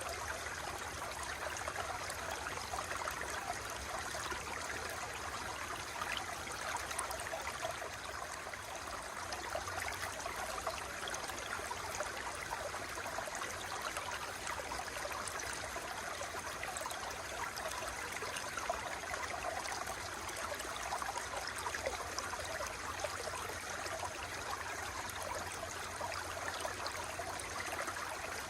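Water flowing in a stream, a steady babbling rush with fine splashing texture.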